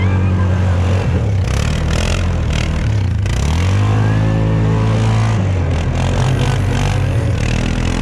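ATV engine running and revving as the quad spins on snow. The pitch rises and falls back about three to five seconds in.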